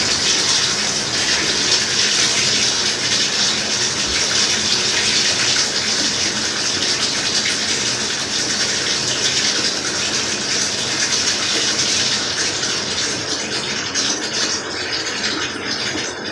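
Bathtub faucet running cold water into the tub, a steady rushing hiss that thins a little toward the end.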